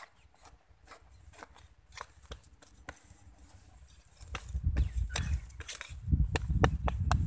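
A hand hoe chopping and scraping into dry, cloddy soil around the base of a young tree, with irregular sharp strikes and clods of earth scattering. About four seconds in the strikes come closer and louder, with a low rumble.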